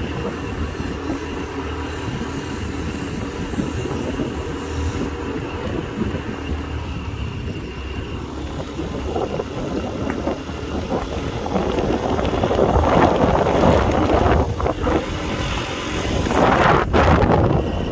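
Motorbike engine running at a steady road speed, with a rushing wind noise on the microphone that grows louder over roughly the last six seconds.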